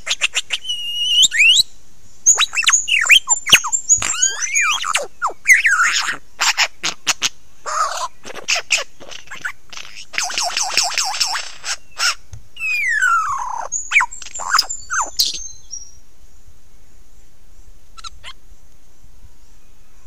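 Lyrebird singing at close range: a loud, varied run of sweeping and falling whistles, sharp clicks and a dense rattling stretch, which stops about three-quarters of the way through. A faint steady high hiss follows, with one short call near the end.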